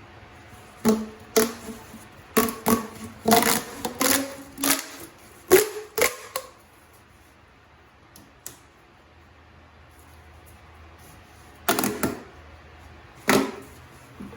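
A run of sharp clacks and knocks, about a dozen in quick succession over five seconds, then a pause and two more near the end.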